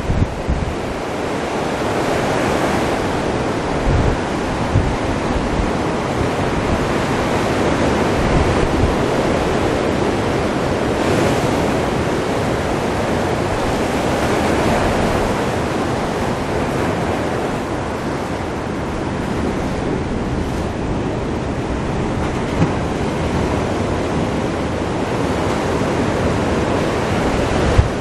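Ocean surf breaking on a sandy beach: a continuous rushing that swells and eases with each set of waves. Wind buffets the unshielded camera microphone in a few short low thumps near the start and near the end.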